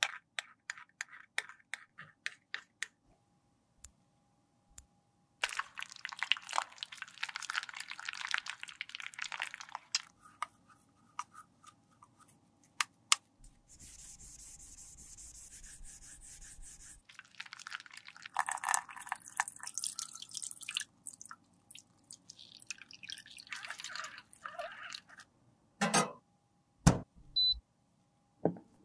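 Close-miked makeup-repair handling sounds. First comes a quick run of light clicks from a metal spatula working product in a metal pan. Then come bouts of scraping and brush scrubbing, including a few seconds of a brush scrubbing over a pressed-powder compact, and a few sharp knocks near the end.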